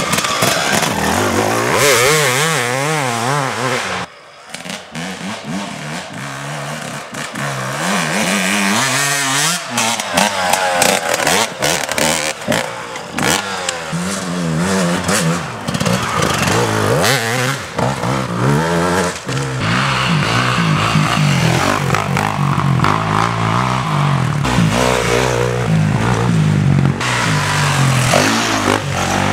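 Enduro dirt-bike engines revving hard as bikes come past one after another, the pitch climbing and falling constantly with the throttle. The sound drops away briefly about four seconds in, then the engines pick up again.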